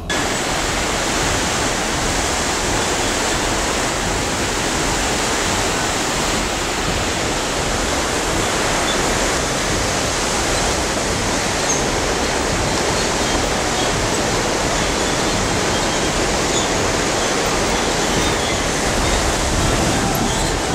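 Rushing whitewater of a mountain river over boulders, a loud, steady roar heard from a suspension footbridge above it.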